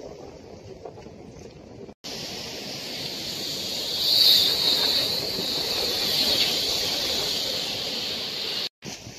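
Sea surf washing on the shore. It is fairly quiet at first, then much louder from about two seconds in, swelling as a wave breaks and easing as it washes back, before cutting off near the end.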